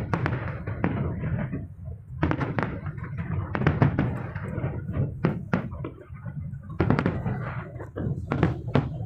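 Fireworks display going off: sharp bangs and crackles coming in clusters every second or two, over a steady low rumble.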